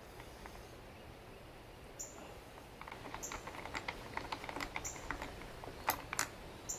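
Light clicking and tapping from an angle grinder being handled, the motor not running, with a few sharper clicks about every second or so after a quiet start.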